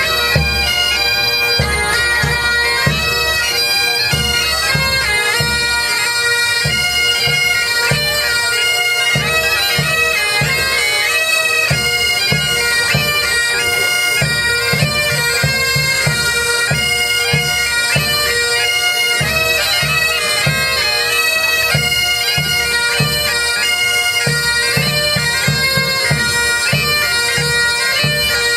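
Several Great Highland bagpipes playing a tune over their steady drones, with a bass drum beating time underneath.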